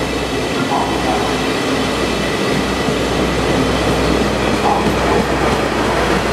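JR West 24 series sleeper coaches of the Twilight Express rolling past, a steady rumble of wheels on rail with faint short wheel squeals now and then.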